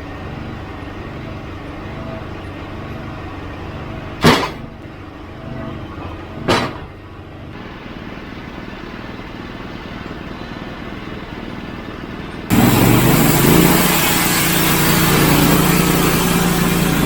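Portable band sawmill's engine running steadily, with two sharp knocks about four and six and a half seconds in. About twelve seconds in the sound suddenly becomes much louder and noisier as the saw is brought up to full running.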